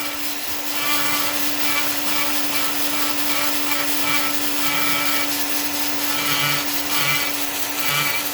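Dremel rotary tool running at a steady whine, its bit grinding into wood in light passes that swell and fade roughly once a second.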